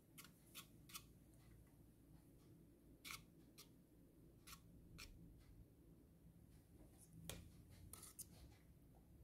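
Faint, irregular ticks and soft scrapes of a small silicone-coated whisk knocking against a stainless steel saucepan while stirring a thick lemon cream.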